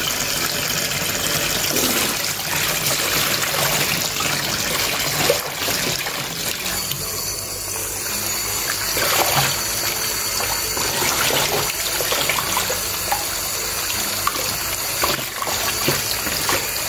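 Kitchen tap running in a steady stream into a stainless steel pot of water and spinach leaves, splashing as a hand moves the leaves about to wash out the sand.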